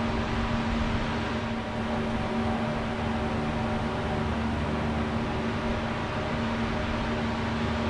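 Steady machine hum with a constant low tone and an even hiss over it, holding at one level throughout.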